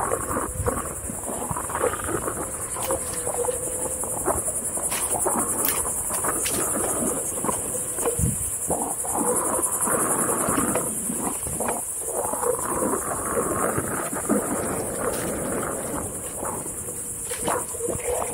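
A Onewheel electric board riding over a dirt trail: the hub motor's whine shifts up and down with speed, with scattered knocks from the tyre over bumps. A steady high-pitched insect buzz runs underneath.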